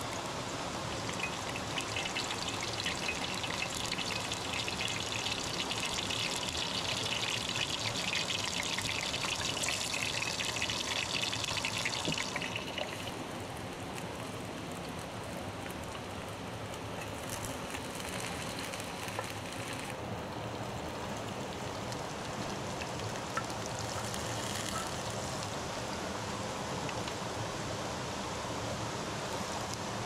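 Steady rush of a stream flowing over rock, with an added hiss through the first twelve seconds that cuts off suddenly.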